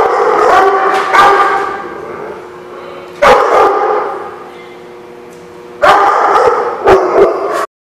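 Dogs barking in three loud bouts: a run of barks at the start, another about three seconds in, and a third from about six seconds in, which cuts off abruptly just before the end.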